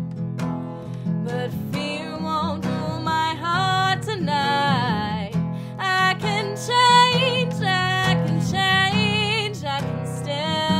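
Strummed acoustic guitar, joined after a second or two by a woman's voice singing a melody with wide vibrato on its held notes.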